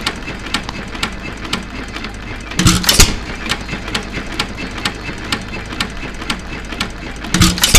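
United 2.5 HP hit-and-miss engine running at slow speed: its mechanism clicks steadily several times a second while it coasts, and it fires twice, about 3 seconds in and again near the end, each firing a louder pop with a low thump. The long coast between firings is the governor holding the engine at its slow setting.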